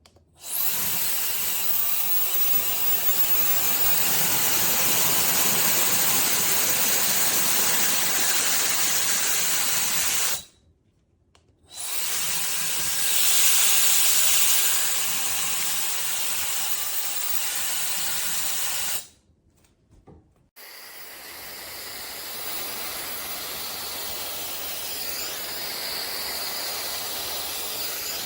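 Slopehill ionic hair dryer blowing with a steady rushing hiss, cutting out twice for a second or so. It is quieter after the second break.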